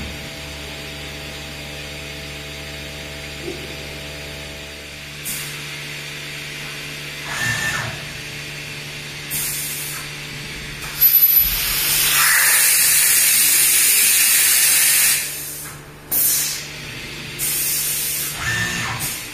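5-axis CNC gantry milling machine running with a steady electrical hum. Short hisses of compressed air sound several times, with a louder hiss lasting about three seconds past the middle.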